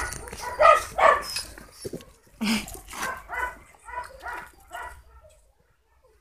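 Puppies yipping and barking in short, high calls, a quick run of them about two a second, growing fainter and stopping about five seconds in: excited play calls.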